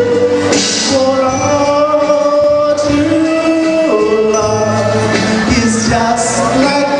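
Background music with a sung melody.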